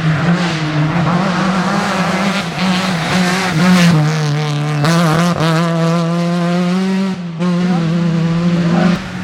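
Rally car engine running hard at high revs, its pitch wavering, with brief drops in the revs about seven and nine seconds in.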